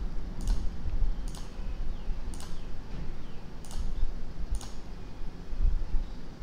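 Five single computer mouse clicks, spaced about a second apart and unevenly, over a low steady background hum.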